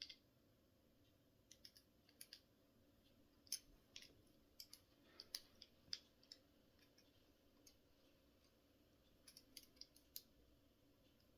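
Faint, irregular metallic clicks of a lock pick working inside a TCH 840 handcuff's keyhole, trying to defeat the double lock.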